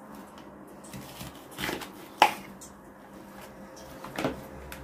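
A few light knocks and clicks of kitchen handling at a cutting board. The sharpest comes about two seconds in, with softer ones just before it and near the end.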